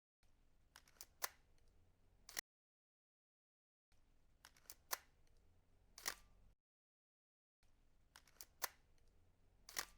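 Camera shutter sound effect, repeated three times: each time a few light clicks and then one louder click, with dead silence in between.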